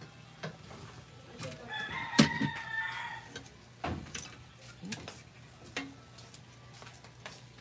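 A rooster crows once, starting a little under two seconds in and lasting about a second and a half. Metal tongs click against the grill pan a few times, the loudest click landing during the crow.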